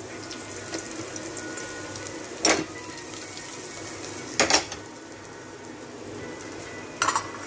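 Hot desi ghee sizzling steadily with whole spices and garlic in a stainless steel pressure cooker, with sharp metal clinks of the cooker and utensils being handled about two and a half and four and a half seconds in and a few more near the end.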